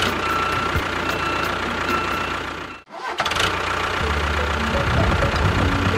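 Tractor engine running steadily. It drops out briefly about three seconds in, then comes back heavier and deeper.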